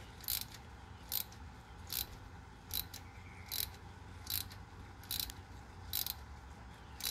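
Hand socket ratchet clicking as it turns a thread tap into an aluminum intake plenum bolt hole: a short burst of pawl clicks on each return stroke, about every 0.8 seconds, nine in all. The owner says the ratchet's selector is about to break.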